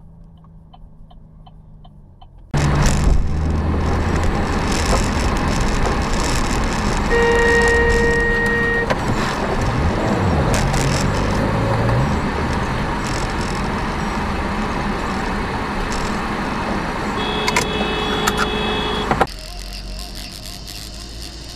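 Loud, steady road and wind noise of a vehicle driving, cutting in suddenly a few seconds in and cutting out near the end. A car horn sounds for about two seconds in the middle and again, at a different pitch, shortly before the noise stops.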